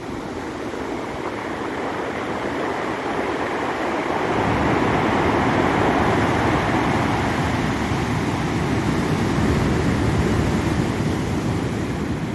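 Ocean surf breaking against rocks, a steady rushing wash that swells up a few seconds in, holds for several seconds and eases off near the end.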